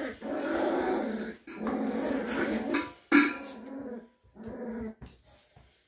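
Cavalier King Charles Spaniel puppies growling in play-fighting, in long rough stretches, with one sharp yap about three seconds in; the growls then come shorter and fainter.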